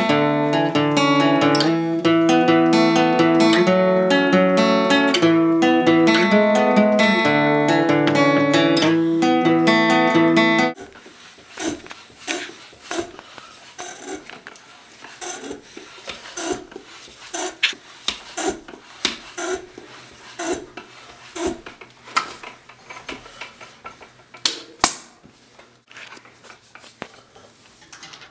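Acoustic guitar played with picked notes and strummed chords, cutting off abruptly about eleven seconds in. After that come much quieter, irregular clicks and knocks of a bicycle being handled.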